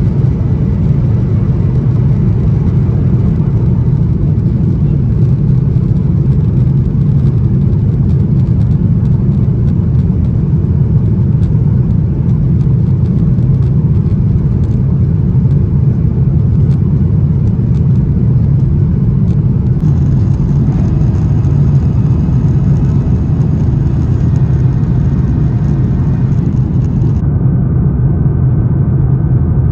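Cabin noise of a Boeing 737-800 climbing out just after takeoff: the steady, loud, low rumble of its CFM56-7B engines and rushing air, heard inside the cabin.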